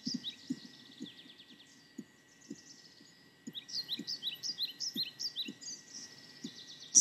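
Meditation background soundscape: runs of quick descending bird chirps that stop about two seconds in and return about halfway, over a steady thin high tone and a soft low pulse about twice a second.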